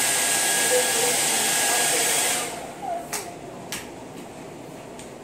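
Hand-held hair dryer blowing on its cold-air setting, with a faint whistle in its rush, then switched off about two and a half seconds in, its whir dying away quickly. A few sharp clicks follow.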